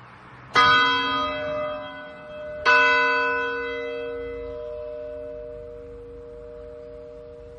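Church bell struck twice, about two seconds apart, each stroke ringing out into a long hum that fades slowly.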